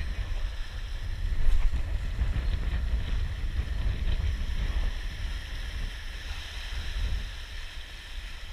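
Wind buffeting the microphone in a steady low rumble, over surf washing and splashing against shoreline rocks.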